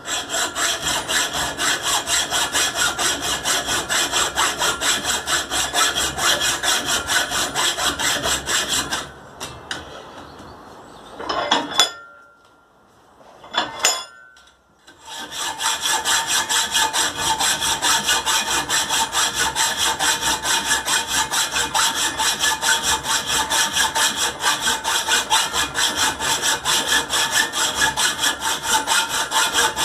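Hand hacksaw cutting a steel pipe, with rhythmic strokes about two a second. The sawing stops about nine seconds in, a couple of brief knocks follow, and the strokes start again a few seconds later.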